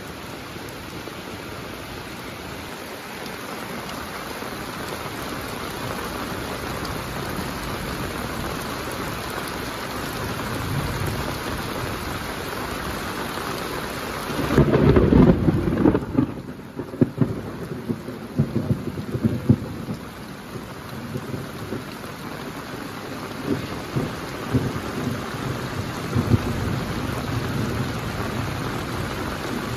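Heavy monsoon rain falling in a steady hiss. About halfway through, a loud rumble of thunder breaks in and rolls on in irregular peals for roughly ten seconds over the rain.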